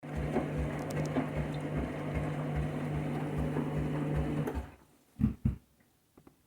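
Washing machine on its rinse cycle: the motor hums steadily as the drum turns, with a regular low thudding about two to three times a second. The machine stops about four and a half seconds in, followed by two sharp knocks and a couple of faint clicks.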